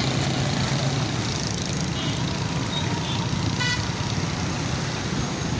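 Busy road traffic: steady engine and road noise from the motorcycles and cars, with a short horn beep a little past halfway.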